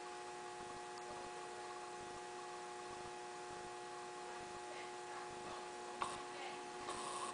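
Steady electrical hum, with a single sharp click about six seconds in and a brief hiss near the end.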